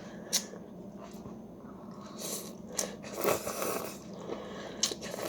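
People eating noodle soup: slurping and chewing, with a few sharp clicks, the loudest of them about half a second in. A longer stretch of slurping noise runs about three seconds in.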